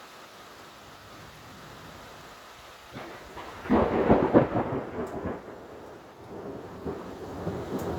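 Steady rain, then about three seconds in a thunderclap breaks out, at its loudest about a second later. The thunder rolls on as rumbling that swells again near the end.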